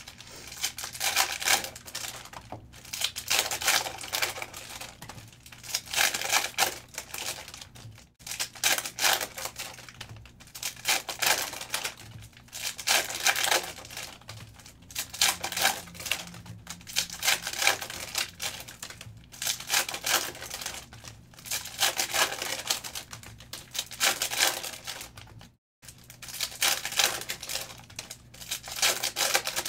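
Foil wrappers of Panini Optic football trading card packs being torn open and crinkled by hand, with the cards slid out and handled, in irregular spells of crackling every second or two.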